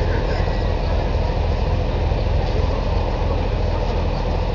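Diesel engine of a Caterpillar demolition excavator running steadily with a low, even rumble.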